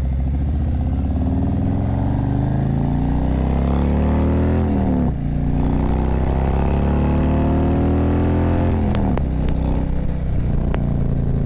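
Harley-Davidson V-twin motorcycle engine pulling hard, its pitch climbing, dropping as it shifts up about five seconds in, climbing again, then falling off near nine seconds and settling to a steady run. A few sharp clicks near the end.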